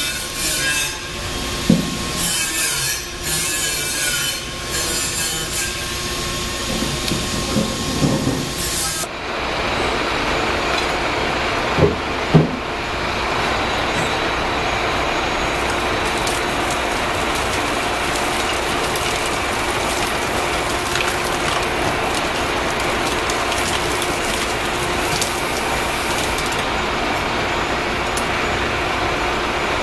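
Hydraulic motor-wrecking press running steadily as its ram lowers a wedge blade into an electric motor stator to split it, with two sharp knocks about twelve seconds in. Before that, an uneven stretch of knocks and rattles.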